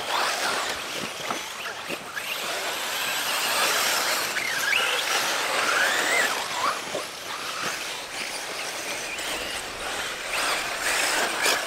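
Electric 1/5-scale RC buggies racing on a dirt track: motor whine rising and falling with the throttle over a steady hiss of tyres on loose dirt.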